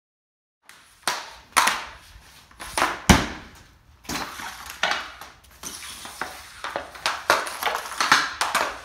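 Off-ice hockey shooting on plastic dryland tiles: a run of a dozen or so sharp, irregular clacks of stick striking puck and puck striking the target, the loudest about three seconds in.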